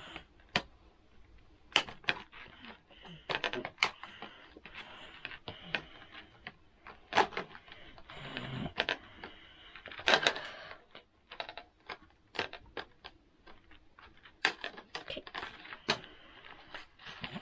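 Small scissors snipping and clicking at irregular intervals as they cut the ties holding a fashion doll in its packaging, with light rustling of plastic between the snips.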